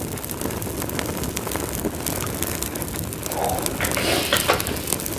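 Fire sound effect: a steady rush of burning flames with many small crackles.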